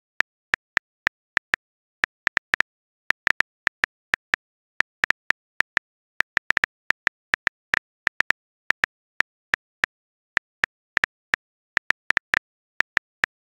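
Phone keyboard typing clicks: short, sharp ticks at an uneven pace of two or three a second, with brief pauses, as a message is typed out letter by letter on a touchscreen keyboard.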